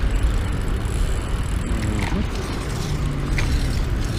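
Brompton folding bicycle rolling along a paved road: a steady low rumble of wind and tyres on the handlebar camera's microphone.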